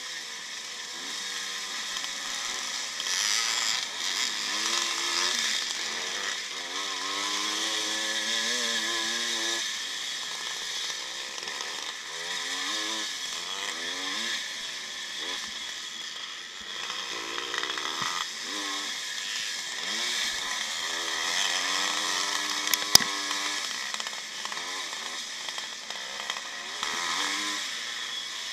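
1955 Maico's two-stroke engine racing under load, its pitch climbing and dropping again and again as the rider accelerates and shifts, over a steady high hiss. A single sharp knock comes about two-thirds of the way through.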